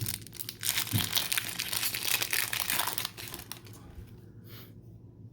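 Crinkling and tearing of a trading-card pack wrapper as a 2014 Sage Hit football pack is ripped open, a dense crackle for about three and a half seconds that then dies away.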